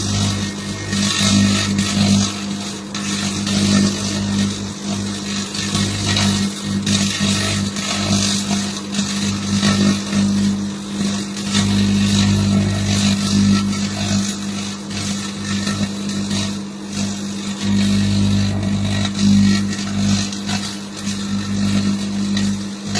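Microwave oven running: a steady low electrical hum, with an irregular crackle over it throughout.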